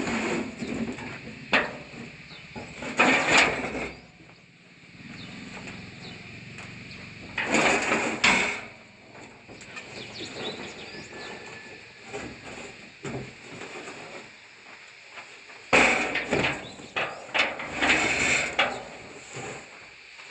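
Intermittent scraping and knocking in several bursts a few seconds apart, typical of a sliding door latch or bolt being worked.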